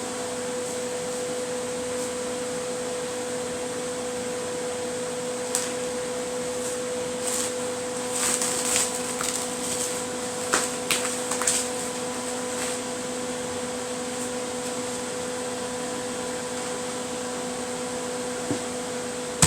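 Steady mechanical hum with a constant tone, like a running fan motor. Scattered short clicks and crinkly rustles come in the middle.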